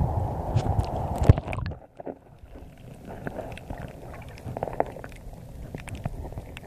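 Water splashing and wind noise at the surface that cut off suddenly about two seconds in as the microphone goes under the water. After that comes a quieter, muffled underwater sound with faint scattered clicks and crackles.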